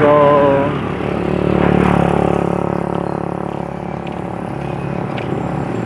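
A motor vehicle passing on the road, its engine and tyre noise swelling to a peak about two seconds in and then fading.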